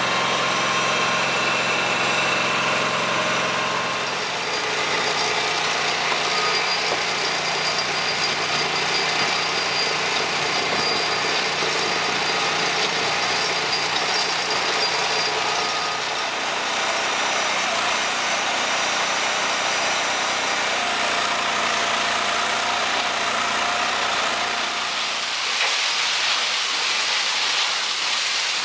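Portable concrete batch plant and mixer running, with a steady mechanical drone from its drive and rotating drum. Near the end a rushing hiss comes in as aggregate tumbles inside the turning drum.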